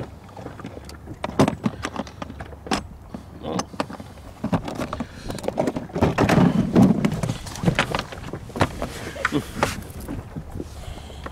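Irregular knocks, clicks and rattles of things being handled aboard a small boat, with a louder low rumbling stretch about six to seven seconds in.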